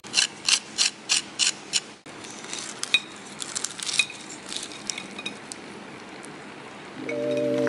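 A knife cutting through the crisp breadcrumb crust of a deep-fried ball, with irregular crunching and crackling. Before it comes a quick, even run of sharp clicks, about three a second. Soft music starts near the end.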